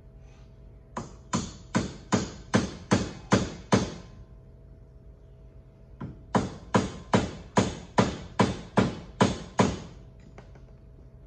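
Hammer tapping a new bushing into the front leaf spring eye of a Club Car DS golf cart: a run of eight quick, even strikes, a pause of about two seconds, then about ten more, roughly two and a half a second. The bushing is nearly seated.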